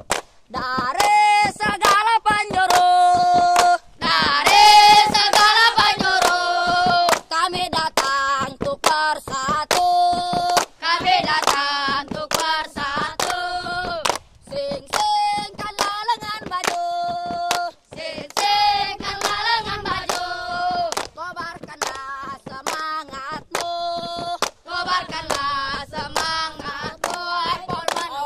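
A group of boys singing a chant together in unison, with rhythmic hand claps keeping time.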